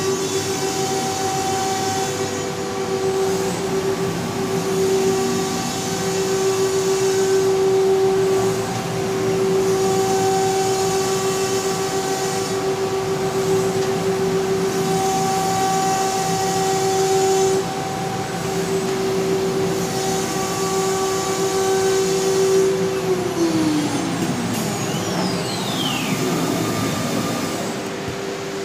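Biesse Rover K CNC router machining wood: the spindle gives a steady high whine over an even rushing noise. About 23 seconds in, the whine drops in pitch as the spindle slows, and the steady whine is back near the end.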